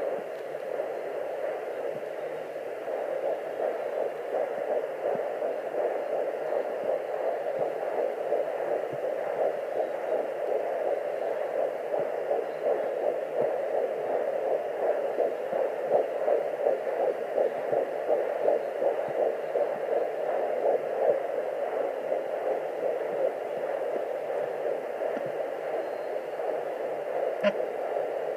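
Sonoline B fetal Doppler speaker playing a fast, pulsing whoosh of an 11-week fetal heartbeat over the Doppler's steady hiss. A brief click comes near the end.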